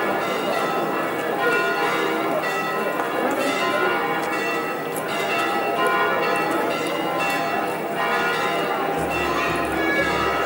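Church bells ringing continuously, stroke after stroke overlapping into a sustained peal, over crowd voices.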